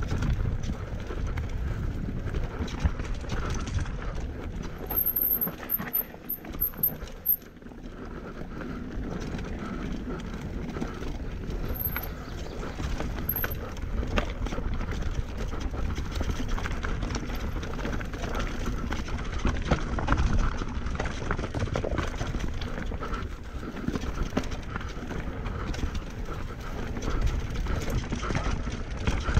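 Mountain bike ridden fast down a rough dirt trail: steady tyre and trail noise with frequent clattering knocks and rattles from the bike over bumps, briefly quieter about six seconds in.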